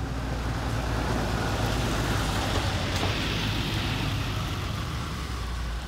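Burning delivery van: a steady rush of flames with crackling, and one sharp crack about three seconds in, over a steady low hum.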